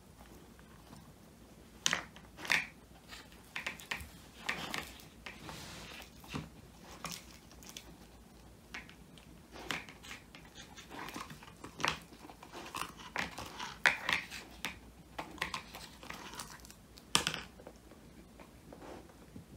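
Old English Sheepdog puppy gnawing a whole dried quail treat: irregular crunches and crackles of bone and dried skin between its teeth, with short pauses, falling quieter in the last couple of seconds.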